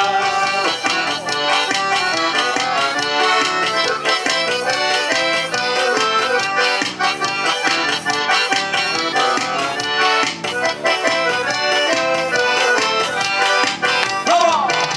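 Forró band playing an instrumental passage between verses, led by the accordion (sanfona) over a steady, regular percussion beat.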